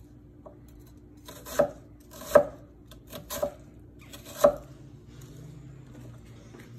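Chef's knife chopping onion on a wooden cutting board: about five sharp knocks of the blade striking the board, irregularly spaced, starting about a second and a half in.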